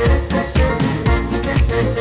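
Background music with drums keeping a steady beat, about two beats a second.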